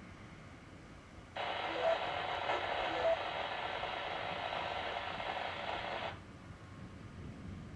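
Radio speaker in the vehicle giving a burst of static for about five seconds, starting and stopping abruptly, with a few faint short tones in it.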